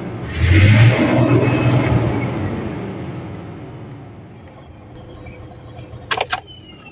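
A 6M70 diesel engine surges briefly about half a second in, then shuts off, its sound and a high whine falling in pitch fading away over several seconds. Sharp clicks follow near the end.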